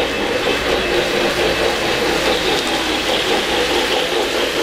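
O-gauge model trains running on three-rail Fastrack track: a steady rumble and hum of wheels and motors, with a passenger train passing close by near the end.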